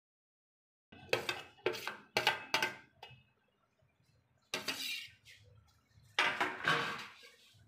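Metal spatula scraping and clattering against a stainless steel plate and bowl as chopped onions and tomatoes are pushed into the poha: four quick strokes starting about a second in, another near the middle, and a longer scrape near the end.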